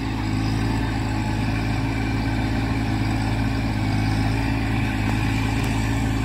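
Kubota compact tractor's diesel engine running steadily under load as the tractor tills its way forward in one pass. Its note stays even throughout.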